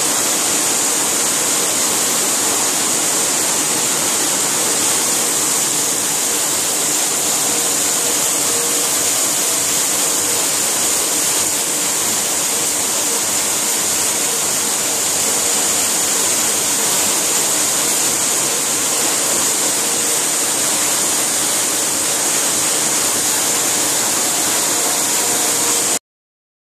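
Sheetfed offset printing press running: a steady, even mechanical rush with a strong hiss and faint hums, unchanging throughout. It cuts off suddenly near the end.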